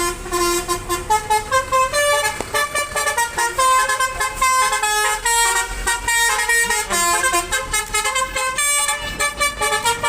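Indonesian tour bus's 'telolet basuri' multi-trumpet air horn playing a quick tune of short notes that step up and down in pitch.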